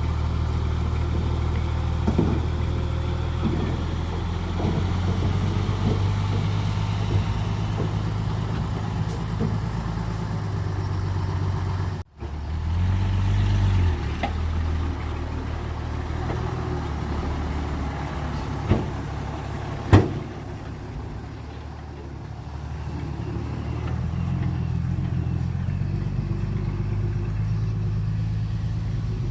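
Diesel engine of heavy earth-moving equipment running steadily, with a few sharp knocks, the loudest about twenty seconds in. The sound breaks off for an instant about twelve seconds in and comes back briefly louder.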